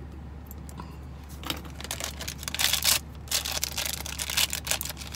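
A shiny blind-box bag being torn open and crinkled by hand: a run of crackling and rustling that starts about a second and a half in and is loudest near the middle.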